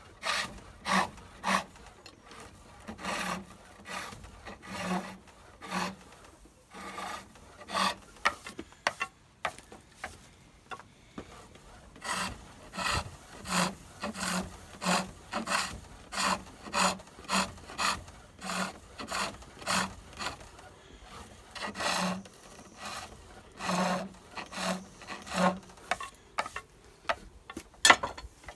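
Pole lathe turning a wooden chair spindle: a chisel cutting the spinning wood in rhythmic strokes, a little more than one a second, each with a low knock. The strokes thin out for a couple of seconds around the middle.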